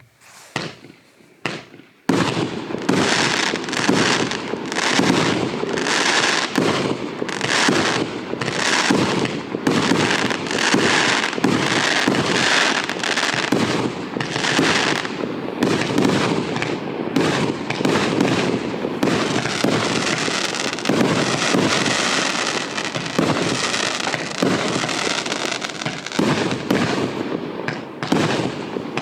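A 49-shot, 1.2-inch firework cake (battery) firing. Two sharp pops come in the first two seconds, then from about two seconds in a rapid, unbroken series of launches and aerial bursts.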